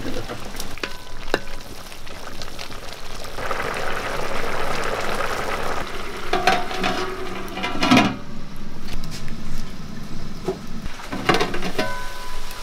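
Basmati rice boiling in water in an aluminium pot over a wood fire, with a few sharp metallic knocks from the pot's lid being handled.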